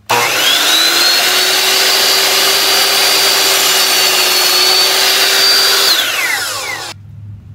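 Ryobi 10-inch sliding compound miter saw (TSS103) switched on, its motor whine rising to full speed within about a second, then held steady for about five seconds as the blade is lowered through a wooden board for a 15-degree angle cut. The trigger is then released, and the whine falls as the blade spins down, stopping abruptly about a second later.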